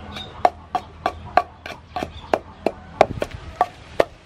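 Wooden pestle pounding chili paste in a wooden mortar: steady, regular strokes, about three a second.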